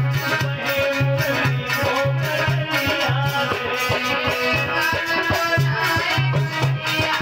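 Live devotional kirtan music: a steady, repeating drum beat with sharp jingling percussion strokes over held chords.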